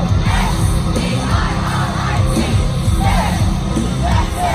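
Live heavy rock music played loud over a festival PA, with a strong bass and a voice singing and yelling over it.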